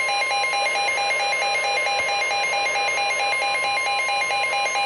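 NOAA Weather Radio warning alert: a steady alarm tone with a rapid pulsing beep over it, about five beeps a second, announcing a severe thunderstorm warning.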